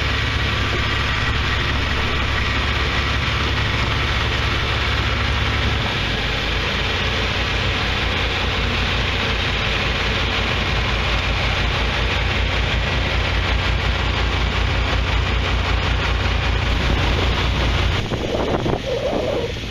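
John Deere farm tractor engine running steadily as the tractor drives past, its low note changing about six seconds in. Near the end the engine gives way to wind buffeting the microphone.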